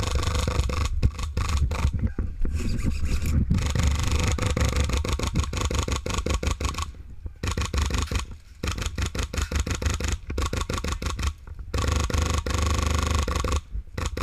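Dense rubbing, scraping and knocking handling noise from an action camera sealed in a waterproof case, over a heavy low rumble, as its wearer moves and crouches through brush, with a few brief lulls.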